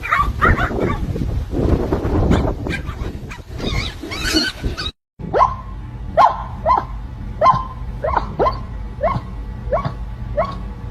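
A dog barking in a steady run of about ten short, sharp barks, a little under two a second, starting after a brief cut. Before the cut there is a jumble of unclear noise.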